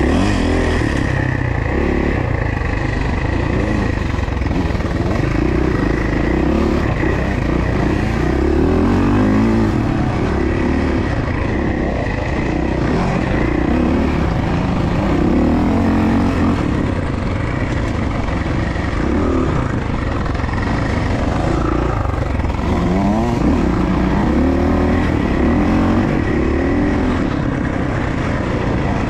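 Suzuki motocross bike engine running hard while riding, its pitch rising and falling over and over with the throttle.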